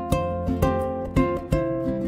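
Background music played on a plucked string instrument, picking out a melody of ringing notes.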